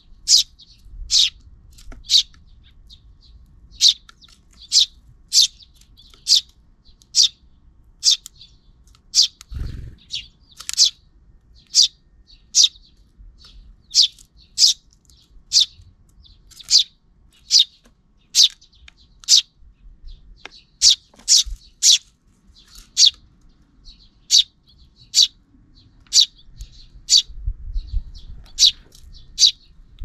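Sparrows chirping, a short, sharp chirp about once a second, sometimes two in quick succession. A brief low thump about ten seconds in.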